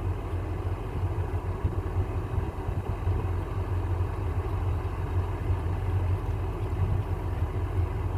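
Case IH 4430 Patriot sprayer's engine running steadily with a deep, even hum.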